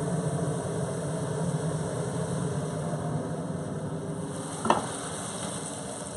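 A carbon-steel wok of stir-fried shredded potatoes being scraped out onto a plate with a metal wok spatula, over a steady low rushing noise. There is one sharp clink of the spatula on the wok about four and a half seconds in.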